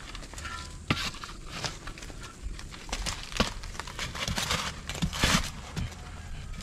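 Shovel blade being driven into dry, stony soil and levered out to dig open a burrow: irregular gritty scrapes and crunches with a few sharp knocks.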